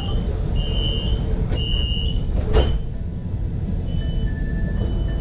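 Alstom Citadis tram running with a steady low rumble inside the car. A series of short electronic beeps sounds over it, higher-pitched at first and lower later, and a single clunk comes about two and a half seconds in.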